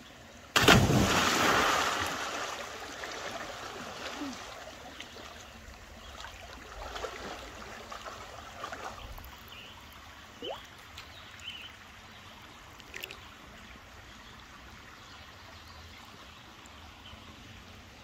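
A person jumping into a creek swimming hole: one big splash about half a second in that dies away over a couple of seconds. Then quieter water lapping, with a few small splashes and trickles as the body moves in the water.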